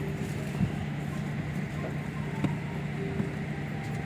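Steady low hum inside a parked airliner's cabin, with two faint clicks.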